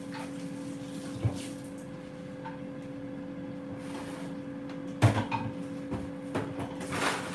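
Kitchen knocks and clatter over a steady hum: a single knock a little over a second in, then a short burst of knocks and rattling about five seconds in.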